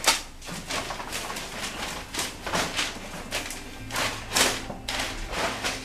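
A string of short rustles and soft slaps as damp blankets are spread and pressed down on a spray-booth floor, with a faint low hum underneath.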